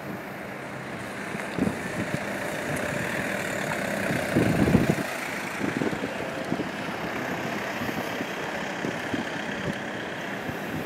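Outboard engine of a rigid inflatable boat running steadily as it passes. Wind rumbles on the microphone throughout, with a stronger gust about four seconds in.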